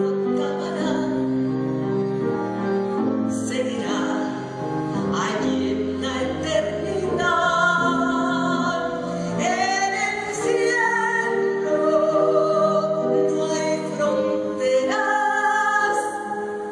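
Background music: a song with a singer holding long notes, some with vibrato, over a sustained instrumental accompaniment.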